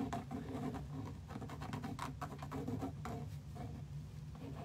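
Turkey feather brushing and dabbing paint onto a canvas, a quick, irregular series of short rubbing strokes.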